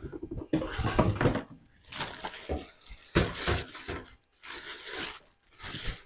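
Clear plastic wrapping crinkling and rustling, with a cardboard box being handled, as a new toaster is lifted out of its packaging and unwrapped. The sound comes in several irregular bursts with some dull handling knocks.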